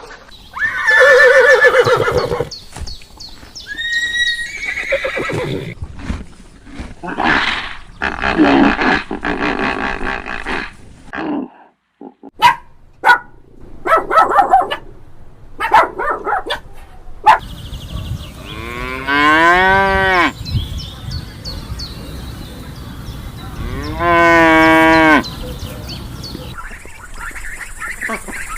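A quick run of farm animal calls cut one after another. Two long drawn-out calls, probably cattle mooing, stand out: one about two-thirds of the way through and one near the end, each rising and then falling in pitch.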